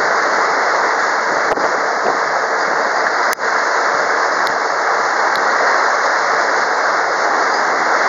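Steady rushing noise of water along the hull of a tour boat under way on a river, with a single sharp click a little past three seconds in.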